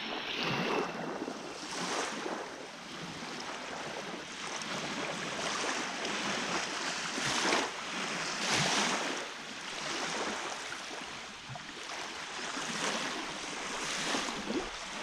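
Lake waves washing onto the shore, one surge after another every couple of seconds.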